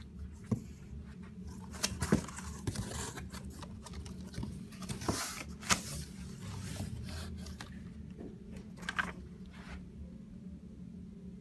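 Cardboard packing and paper instruction sheets being handled in a box: rustling and scraping, with a few sharp crackles, the loudest about two and five and a half seconds in. A low steady hum runs underneath.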